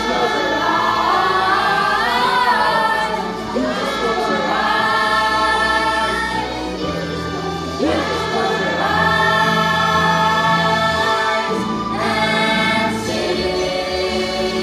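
A stage musical's cast singing together in chorus, holding long notes, over instrumental accompaniment whose low notes change about seven and twelve seconds in.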